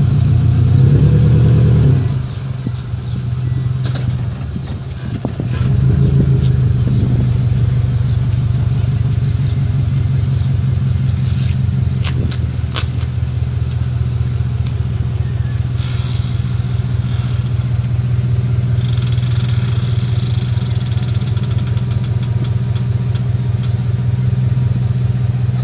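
Subaru WRX running with a steady engine drone and a fine repeating pulse, the noise the owner suspects comes from a drive axle. The level drops about two seconds in and picks back up a few seconds later, with scattered clicks over the top.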